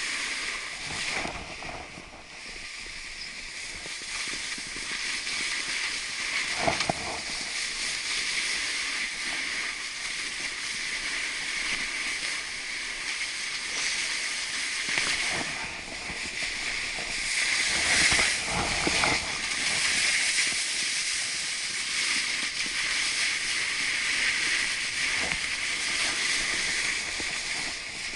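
Snowboard sliding over packed snow: a steady hissing scrape that swells and eases several times as the board turns, strongest about two thirds of the way through.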